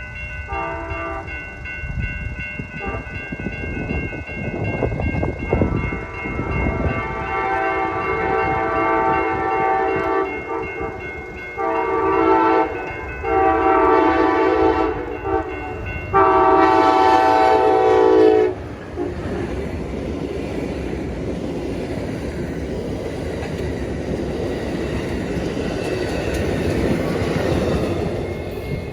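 Amtrak passenger train's multi-chime air horn sounding a chord in a series of blasts as it approaches, the loudest three, one short and two long, coming between about twelve and eighteen seconds in. The train then passes, its wheels running over the rails in a steady clatter that fades near the end.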